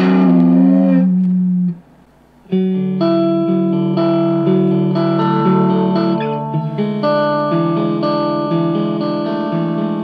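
Electric guitar played through a Stewmac Sun Fuzz pedal with the fuzz at 2 o'clock. A held chord from the BC549B-transistor test stops a little under two seconds in. After a short gap, new chords and single notes start with a BC549C silicon transistor in the pedal.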